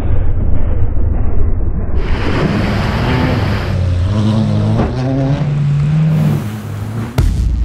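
Honda Civic ploughing through deep water, spray rushing and drumming against the car, then its 1.4-litre engine revving as it accelerates away, the note rising and falling in steps.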